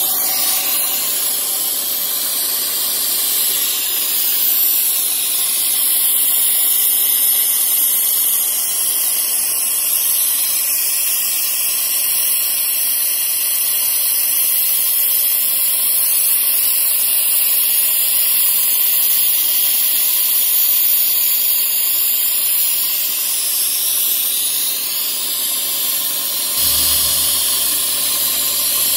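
Steady loud hiss of coolant mist spraying at a milling machine while a drill bores holes in steel square tubing. About 27 s in the sound changes abruptly and a low hum joins the hiss.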